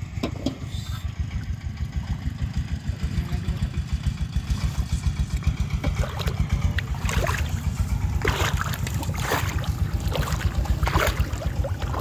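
An unseen engine running steadily with a fast, even low putter. Water splashes and sloshes several times in the second half.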